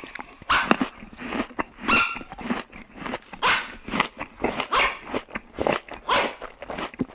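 A dog barking repeatedly, with short sharp barks about every half second to a second.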